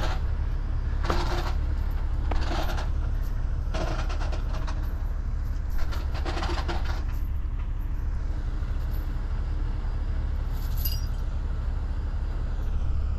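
Steady low rumble of heavy rotator tow trucks' diesel engines idling, with a few short clatters now and then.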